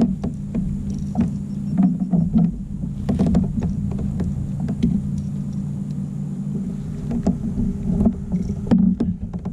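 Steady low engine drone of a boat, with frequent irregular knocks and clicks of gear being handled aboard the kayak.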